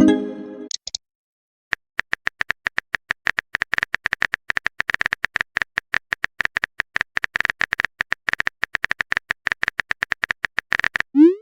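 Rapid keyboard-typing clicks, many a second, as in a phone texting sound effect, after a short electronic message chime in the first second; a rising blip sounds right at the end.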